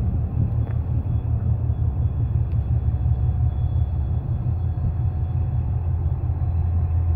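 VL10 electric locomotive pulling away along the track: a steady, loud low rumble.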